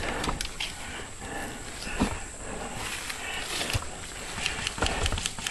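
Irregular knocks, clicks and rustling: handling noise picked up by a camera mounted on an airsoft rifle as the rifle is carried and swung, with a couple of heavier thumps near the end.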